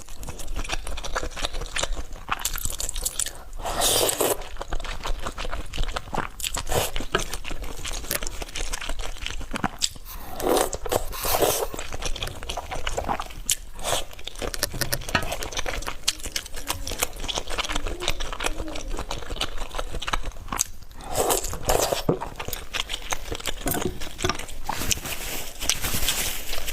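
A person eating close to the microphone, steadily biting and chewing food, with a few louder mouthfuls spaced through.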